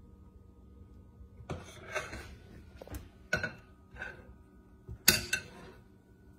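Metal spatula clinking and scraping against a glass mixing bowl while icing is scooped out: a handful of short knocks, the loudest about five seconds in.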